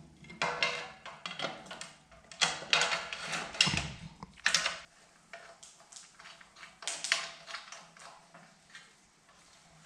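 Metal parts of a bandsaw blade sharpener clinking and knocking together as support arms are fitted and fastened to its frame: an irregular clatter, busiest in the first half, then a few lighter clicks.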